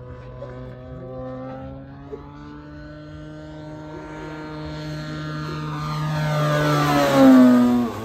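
EME 60cc single-cylinder two-stroke petrol engine of a 3 m Cassutt racer model plane, turning a 22x10 propeller through a canister muffler, droning steadily as the plane flies by. It grows louder, peaks about seven seconds in, and drops in pitch as the plane passes close by.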